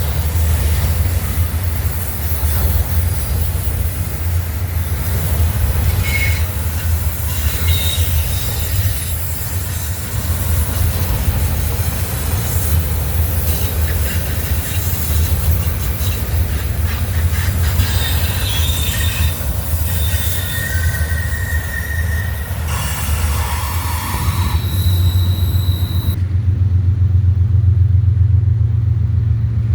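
A train rolling past with a steady low rumble and rail noise, with brief high-pitched wheel squeals now and then.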